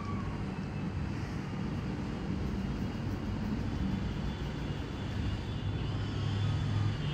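Low, steady rumble of a motor vehicle's engine in the background, getting slightly louder in the second half.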